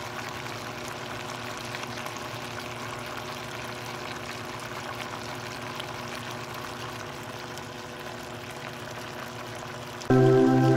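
Chicken afritada simmering in a stainless steel stockpot, a steady bubbling hiss. Loud music cuts in near the end.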